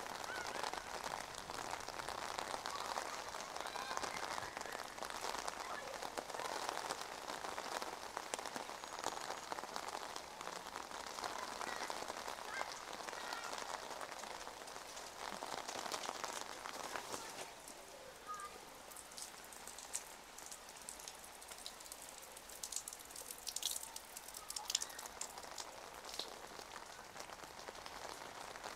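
Rain pattering on wet pavement and on an umbrella overhead, a steady hiss of drops. It eases off about two thirds of the way through, and a few sharp drips land near the end.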